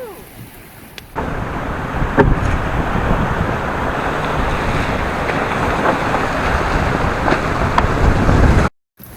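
Strong wind buffeting the microphone aboard a sailing boat under way, with the rush of the sea beneath it. It starts abruptly about a second in and cuts out briefly near the end.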